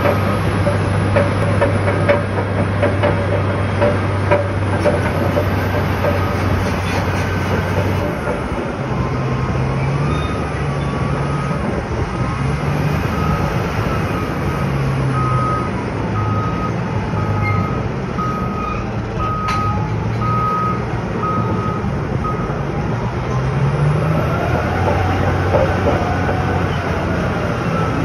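Caterpillar D11 bulldozer's diesel engine running under load on the stockpile; after about eight seconds its note shifts. From about a third of the way in, a reversing alarm beeps steadily, roughly every three-quarters of a second, as the dozer backs up, and beeps again near the end.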